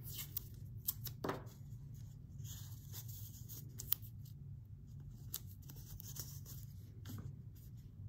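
Quiet handling sounds of a strip of tape being pulled and torn from a small roll and pressed onto a cardboard tube: scattered soft clicks and rustles, with a sharper click about four seconds in, over a low steady hum.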